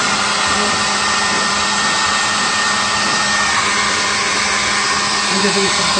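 Ryobi P2102 cordless leaf blower converted into a bee vacuum, running steadily as it pulls air through a hose into a 5-gallon pail: an even rush of air with a steady motor whine.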